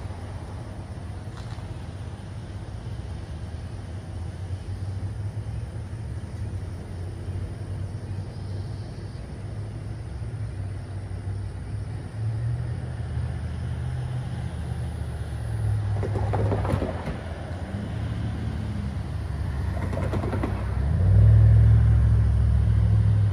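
Low engine rumble of road vehicles passing by. It grows louder from about halfway through, swells twice more briefly, and is loudest near the end.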